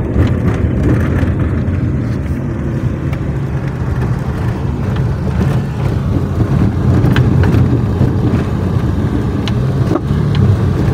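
Steady engine and road rumble heard from inside a moving van's cabin, with a few brief knocks in the second half.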